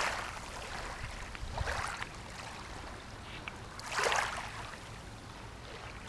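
Wind rumbling on the microphone and water lapping, with a louder rush of water about four seconds in.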